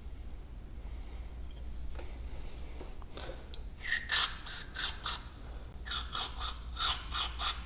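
A rapid series of short scratchy strokes, about three a second, starting about four seconds in, as a motorcycle brake caliper part is cleaned with spray lubricant to clear old grease; a low steady hum lies under it.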